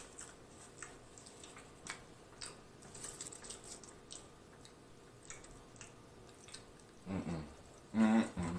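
Faint, sparse chewing and small mouth clicks of a person eating fast food such as French fries. Brief wordless vocal sounds come in near the end.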